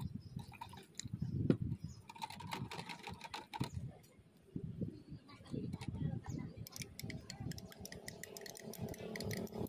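Light clicks and taps of cups and utensils being handled while drinks are made, coming thicker and faster over the last few seconds.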